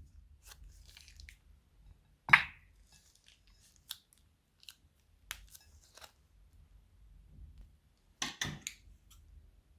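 Slime-making materials being handled, giving scattered crunches and crackles. The loudest is a sharp crunch about two seconds in, and a quick run of three or four crunches comes near the end.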